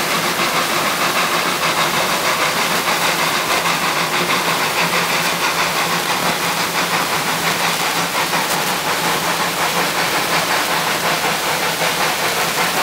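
Narrow-gauge steam cogwheel locomotive pulling away under load, its exhaust chuffing in a rapid, even beat with steady steam hiss.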